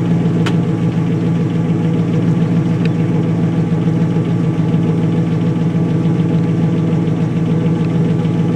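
2002 Pontiac Trans Am's LS1 V8 idling steadily through Flowmaster mufflers, warming up after a cold start.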